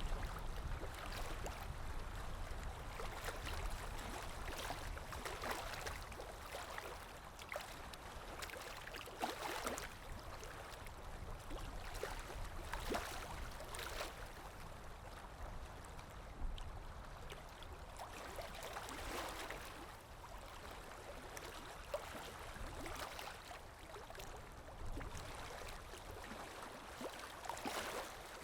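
Sea waves washing in, a steady rush of water that swells and falls back every few seconds.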